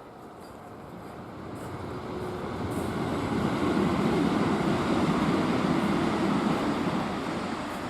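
A vehicle passing by: a rushing noise that builds, is loudest about four to six seconds in, then fades away.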